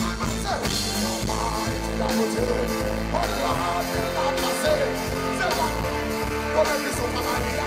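Live reggae band playing loudly, with a male vocalist singing and chanting into a microphone over the music.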